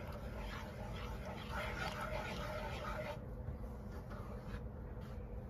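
Wooden spatula stirring and scraping thick curry gravy in a non-stick pan, over a steady low hum, with a faint wavering tone about one and a half to three seconds in.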